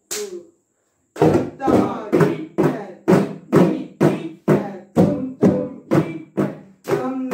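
Mridangams struck together in an even rhythm, a stroke about every half second after a single opening stroke and a short pause. Each stroke rings with a steady drum pitch.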